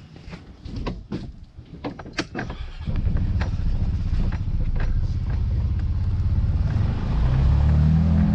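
Light knocks and clicks, then about three seconds in an engine starts up and runs steadily, its pitch rising near the end.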